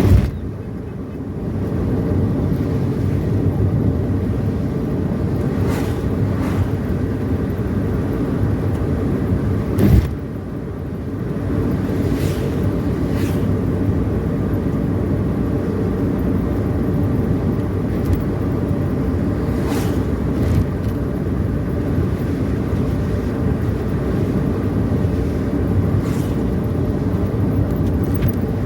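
A car running on the road, heard from inside as a steady low rumble of engine and tyres. A sharp knock sounds at the very start and another about ten seconds in.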